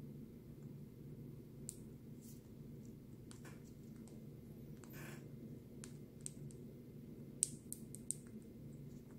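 Sun conure's beak making small sharp clicks as it chews, scattered at first, then a quick run of four or five clicks near the end.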